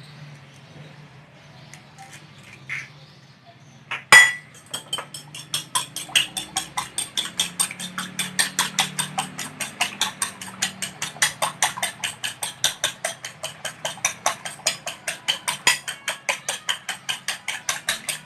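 An egg being beaten by hand in a bowl: rapid, even clinks of the utensil against the bowl, about five a second. They start about four seconds in, just after one sharp knock.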